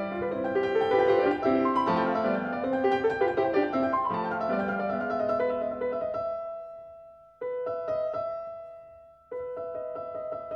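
Calm solo piano music. Flowing runs of notes give way about six seconds in to slow chords that are struck and left to ring out, fading before the next one.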